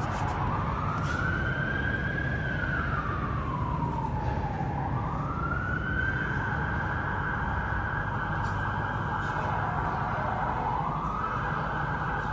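An emergency vehicle siren wailing. Its pitch climbs, holds, drops and climbs again in slow sweeps a few seconds long, over a steady low rumble of background noise.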